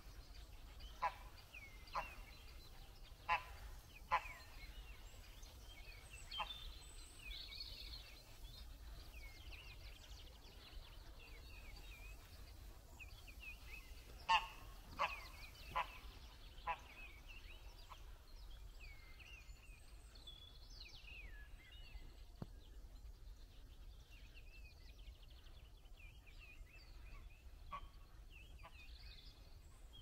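Waterfowl on a pond giving short, sharp honking calls, several in the first few seconds and another quick run about halfway through, over faint chirping of small birds.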